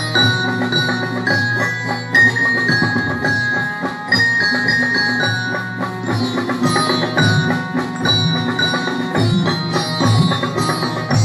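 School orchestra of Indian and Western instruments playing together: sitars, harmonium and xylophone carry a melody of held, stepping notes over a steady beat of tabla, dholak and drums.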